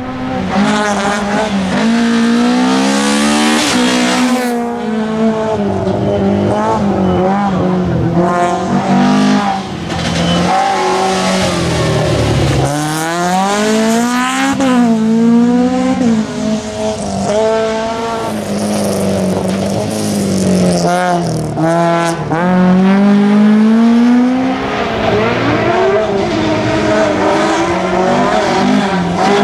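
Rally car engines driven hard on a tarmac stage. The revs climb in steps through gear changes, then drop as the cars brake and shift down for corners, repeating over several passes.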